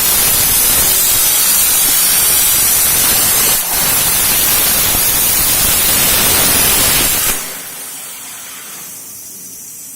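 CNC plasma cutter's torch cutting with a loud, steady hiss that dips briefly a little over a third of the way in. About three quarters of the way through the cut stops suddenly, leaving a quieter, high hiss.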